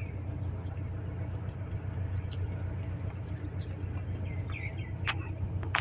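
Steady low drone of an idling engine, with a few faint chirps about four seconds in and a couple of short clicks near the end.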